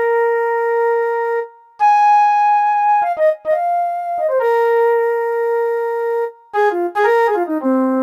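Korg M50 synthesizer's "Silver Flute" patch playing a slow melody of single long held notes with brief breaks between them, then a quicker run of notes stepping down and back up near the end.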